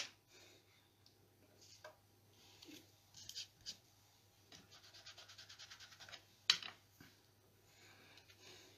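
A foam ink dauber rubbed over cardstock in quick, even strokes, several a second: a faint scratching from blending ink onto the paper. A sharp click comes at the very start and another about six and a half seconds in.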